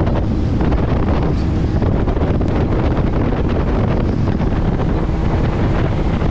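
Loud, steady wind buffeting the microphone on a speedboat under way, over the boat's motor and water rushing past the hull; a faint steady engine hum comes through later on.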